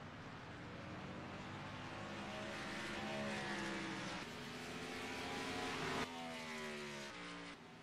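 Race car engine under power, climbing in pitch and growing louder for about six seconds, then changing abruptly and falling in pitch as it fades away, like a car passing by on the track.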